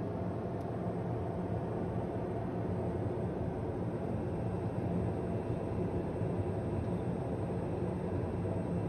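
Light single-engine propeller aircraft in cruise, its engine and propeller droning steadily with a low hum, heard from inside the cockpit.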